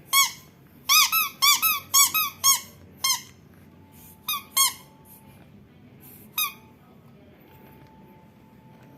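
Squeaky rhinoceros toy squeaking about a dozen times in short sharp squeaks, each rising and falling in pitch: a quick run in the first three seconds, then a few more spaced out.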